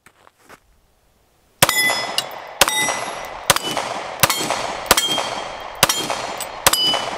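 Kimber Carbon Compact pistol firing seven shots at a steady pace, starting about a second and a half in, with the steel plate targets ringing after each hit.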